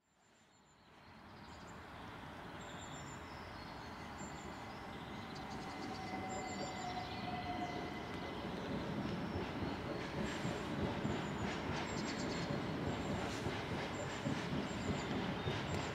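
Class 66 diesel locomotive running light engine, its EMD two-stroke V12 getting steadily louder as it approaches. Its wheels begin to click over the rail joints in the last few seconds.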